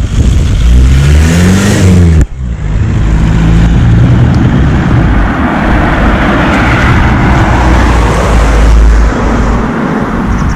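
Loud microphone handling noise, a rustling, rumbling scrape as hands fumble with a clip-on mic at the collar. It briefly cuts out about two seconds in, and it stops near the end.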